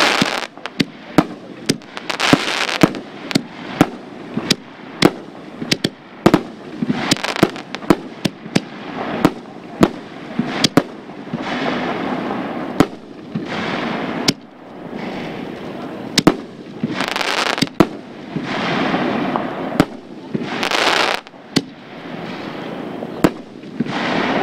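Pyro Diablo 5-inch Hellfire canister shell fireworks bursting: many sharp bangs, up to about two a second, with short spells of rushing noise between them.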